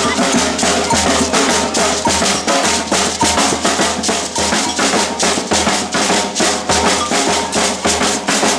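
Batucada percussion ensemble playing a samba rhythm on bass drums and snare drums, the strokes falling in a steady, unbroken beat.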